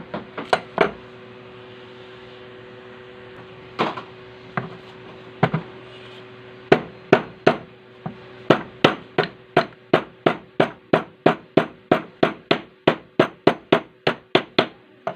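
Hammer tapping on the metal parts of a Singer edger sewing machine while fitting the flywheel and key after a bearing replacement: a few scattered strikes, then from about halfway a steady run of about two to three taps a second.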